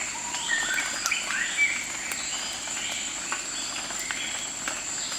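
Several birds chirping and calling in short rising and falling notes, with a steady high-pitched tone behind them.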